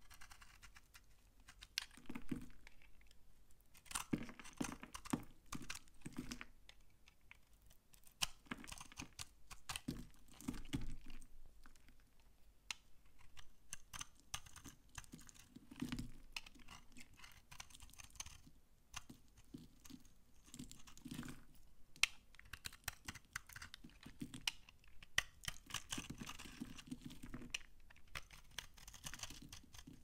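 Utility-knife blade cutting and shaving an old, dry bar of vintage soap: crisp crunching and crackling in repeated strokes, each a cluster of sharp clicks, with short pauses between.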